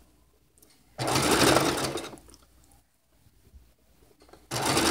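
Domestic sewing machine stitching in short, slow bursts as bias binding is sewn around a rounded corner of a cloth diaper. It runs for about a second starting about a second in, stops, then starts running again near the end.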